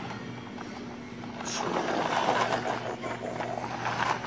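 Toy truck's wheels rolling over a tiled floor, a rough rattling rumble that builds about a second and a half in, over a steady low hum.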